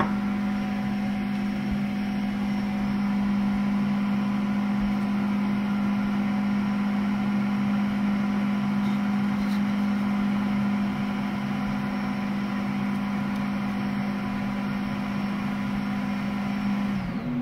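Creality K1 Speedy 3D printer's cooling fan running with a steady hum, winding down with a short falling whine near the end.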